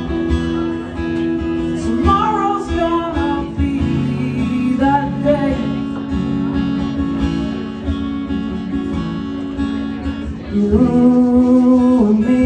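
Acoustic guitar strummed in a live solo performance. A man's voice sings a few short phrases without clear words and holds one long note near the end, the loudest moment.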